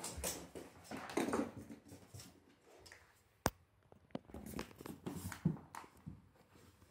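Two cats play-fighting and scampering on a wooden floor: irregular scrabbling of paws and light thumps, with one sharp click about halfway through.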